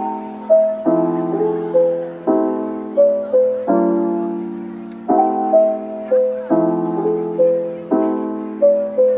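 Background piano music: a chord struck about every second and a half and left to die away, with a simple melody of single notes stepping on top.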